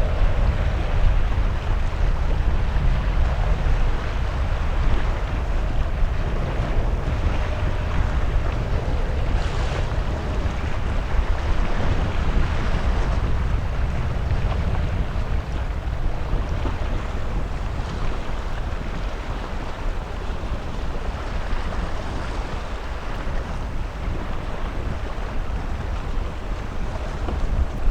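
Steady low rumble of jet aircraft engines, slowly fading, with wind buffeting the microphone.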